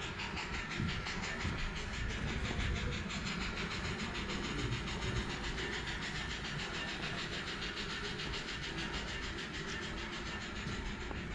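Model railroad train running on the layout: a steady mechanical running noise with a fast, even ticking several times a second.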